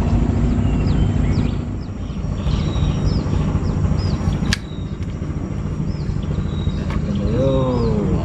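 A steady low rumble runs under a bird's repeated short high chirps. A single sharp click comes about halfway through, and a brief voice sounds near the end.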